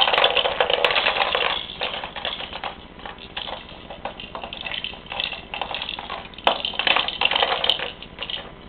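Plastic toys on a baby walker's activity tray rattling and clacking as a baby bangs and works them: a dense clatter for the first second and a half, then scattered clicks, and another burst of clatter from about six and a half to eight seconds.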